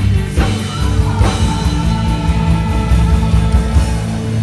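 Live worship band playing an instrumental passage between sung lines: held guitar and bass chords with a few drum hits.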